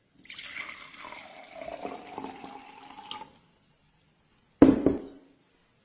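Water being poured, filling a container, for about three seconds, then a loud, short sound about four and a half seconds in.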